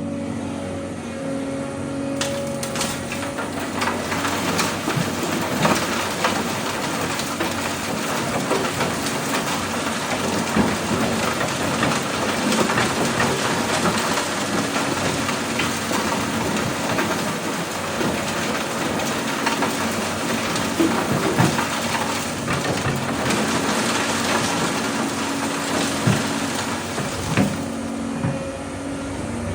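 Doosan DX200A excavator's diesel engine running, with a long clattering pour of rock and dirt into a dump truck bed. The pour starts about two seconds in and stops near the end, with the engine's steady hum showing on either side.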